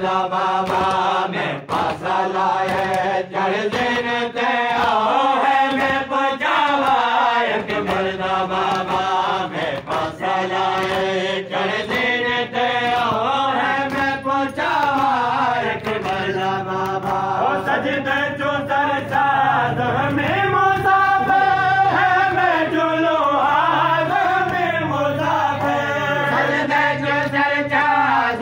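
Men chanting a devotional Muharram chant, one voice line rising and falling in long, drawn-out phrases.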